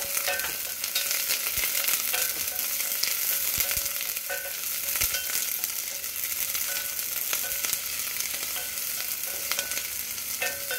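Minced garlic and sliced onion sizzling in a hot stainless steel pot, with a wooden spoon stirring them now and then.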